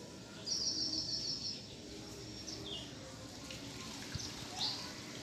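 A small bird chirping in the background: a quick run of high, evenly repeated chirps about half a second in, then a few single chirps and a short falling call near the end, over a low steady background murmur.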